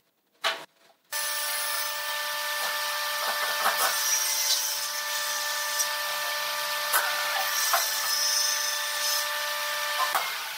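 A machine running steadily: a constant hum of several fixed tones over a hiss, with a few faint clicks. It starts abruptly about a second in and cuts off just before the end.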